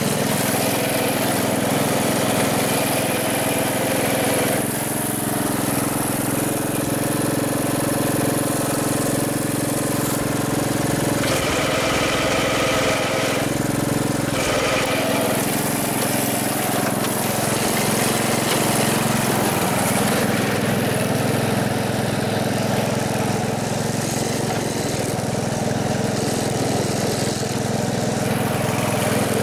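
1969 Chevy Malibu's engine running at a steady idle.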